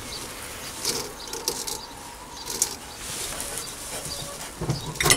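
Hands fitting a nylon link belt onto the lathe's pulleys: rustling with scattered light clicks, and a sharper knock just before the end.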